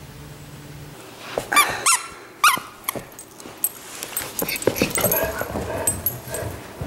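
A dog giving a few short, high yips, then a run of light clicks and scuffling as it plays on a hardwood floor.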